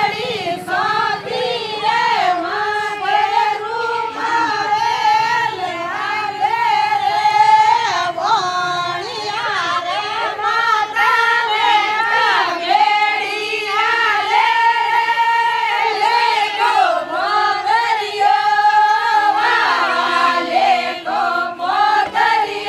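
Group of women singing a Marwari Fagan folk song together, one continuous melodic line in many voices.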